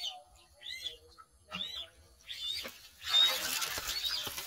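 Duckling bait peeping over and over, one peep about every second, then about three seconds in a loud, drawn-out splash as a snakehead strikes the duckling and thrashes at the surface.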